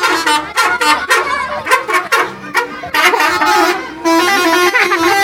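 Indonesian bus 'telolet' multi-tone air horn playing a tune: a quick run of short tooting notes, then a steadier held note for the last second or so.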